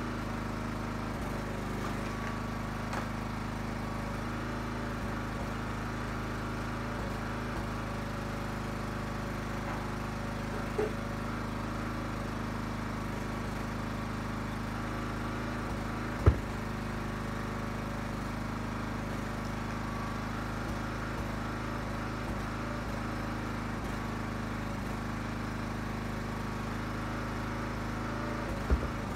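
Engine of a Huskee 35-ton log splitter running steadily, with a few sharp knocks of ash firewood being split and handled, the loudest about halfway through.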